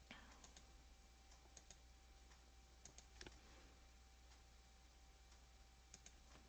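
Faint computer mouse clicks over near silence: a few scattered clicks, some in quick pairs.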